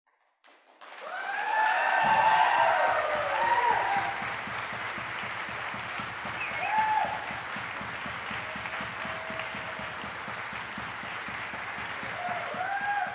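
Audience applauding, with cheers and whoops over the clapping. It bursts in about half a second in, is loudest over the next couple of seconds, then settles into steady clapping, with a few more shouts near the end.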